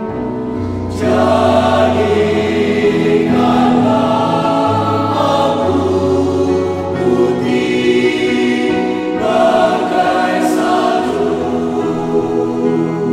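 Mixed choir of men's and women's voices singing in parts, holding long chords, swelling louder about a second in.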